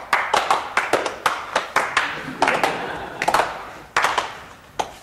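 A small group of men clapping their hands, uneven claps several a second, ending with a last clap near the end.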